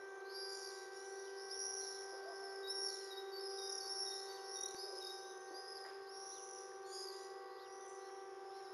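Birds chirping and singing in quick repeated phrases over a steady, unwavering siren tone held at one low pitch.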